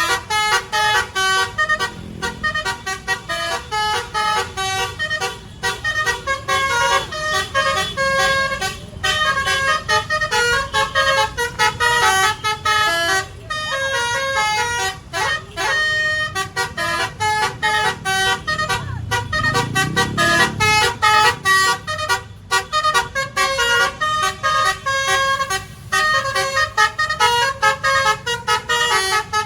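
Indonesian bus 'Basuri' telolet horn, a multi-tone musical horn, playing a quick melody of short notes almost without a break. A low vehicle rumble swells and fades about twenty seconds in.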